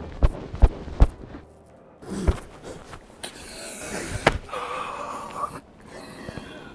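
Crying during a tight embrace: sniffing and heavy, shaky breaths, with a short whimpering sob about five seconds in. Several sharp knocks and the rustle of padded jacket fabric as the two men clutch each other.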